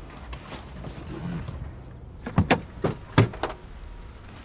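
Car doors and tailgate being handled: about two and a half seconds in, a quick run of five or so sharp clicks and knocks over about a second, over a low steady background rumble.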